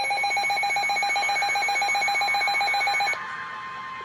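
An electronic weather-alert alarm sounds as a loud, rapidly trilling high-pitched beep, signalling an incoming severe weather warning. It cuts off abruptly about three seconds in, leaving a fainter steady tone.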